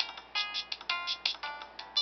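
Kyocera MTV edition slider cell phone playing a polyphonic ringtone: a quick melody of short electronic notes, about five or six a second.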